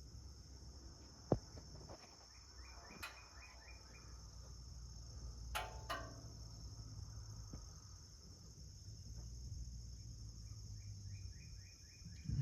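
Steady high-pitched chirring of crickets, with one sharp click about a second in and a few fainter knocks. Twice a short run of rapid chirps sounds over it.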